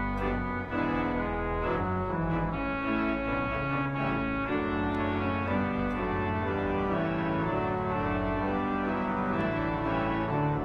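Church organ playing the closing voluntary after the dismissal: full held chords shifting from one to the next over a deep, sustained pedal bass.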